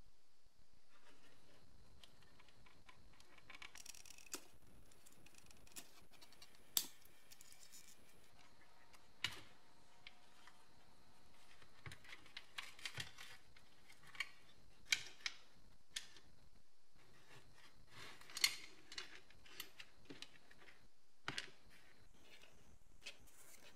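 Scattered sharp clicks and taps with light scraping as a BMW E30 wing mirror's plastic and metal parts are handled and taken apart.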